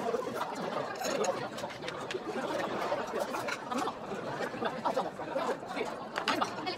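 Indistinct conversation and some soft laughter in a busy restaurant dining room, with a few short clicks.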